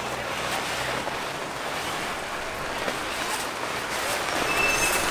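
Vinyl inflatable pool toys and rubber inner tubes rubbing and squeaking against each other in a carried bundle, a steady rustling hiss with short high squeaks near the end.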